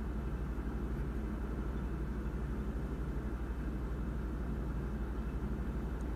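A steady low droning hum with a faint even rumble, unchanged throughout.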